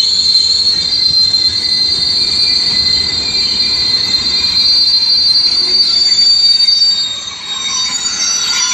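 Intermodal freight train's container wagons rolling past with a steady, high-pitched squeal from the wheels on the rails, over a low rumble.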